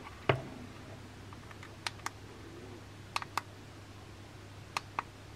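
Buttons on a Chinese diesel heater's wired remote controller clicking as they are pressed: one click, then three quick pairs of clicks, over a steady low hum.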